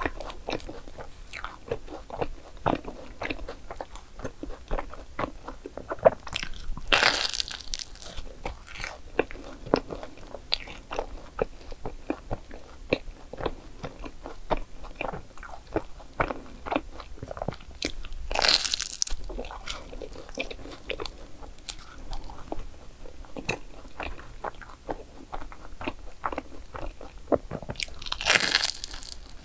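Close-up biting and chewing of a crisp croissant waffle (croffle) with whipped cream and chocolate: a steady run of small crackling crunches as the flaky pastry breaks. Three louder bursts of noise, each about a second long, come about a quarter, two thirds and near the end of the way through.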